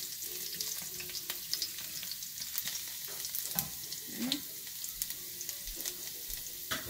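Chopped garlic and whole spices (cumin seeds, bay leaf, cinnamon stick) sizzling in hot oil in a ceramic-lined pan: a steady sizzle with scattered crackles. A wooden spoon stirs through it for the first few seconds, then is left resting in the pan.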